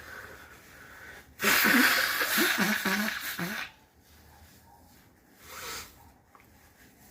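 A person's sneeze: a faint breath in, then a loud, noisy sneeze with voiced parts, lasting about two seconds. A short, softer sniff follows a couple of seconds later.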